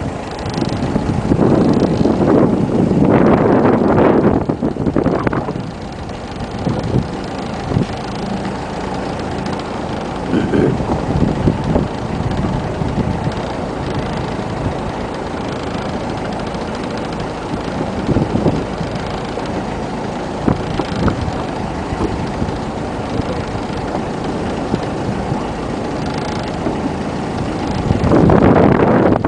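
Wind buffeting the microphone in heavy gusts near the start and again near the end, over a steady rumble of a boat engine.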